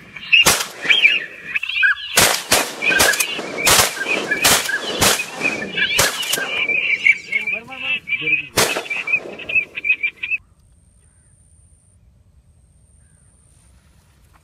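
Rapid shotgun fire, about a dozen shots over ten seconds, over the steady calling of waterfowl. About ten seconds in, it all cuts off abruptly to a faint hiss.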